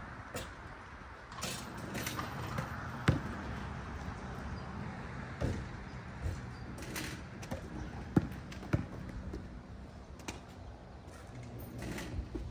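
Basketballs bouncing on a court: a dozen or so separate sharp thuds at uneven intervals, over a steady background hiss.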